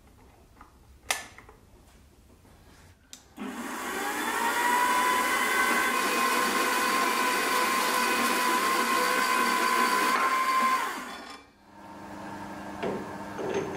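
A click about a second in, then a small metal-cutting bandsaw starts about three seconds in, its motor whine rising briefly and then running steadily as the blade cuts steel hex bar. It stops after about seven seconds.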